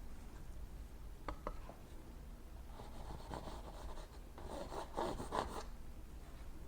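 Painting knife scraping across wet oil paint on canvas in several short strokes, loudest in a cluster near the end.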